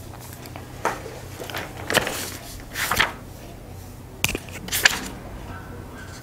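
Handling noise: a few short rustles and sharp clicks, roughly a second apart, over a steady low hum.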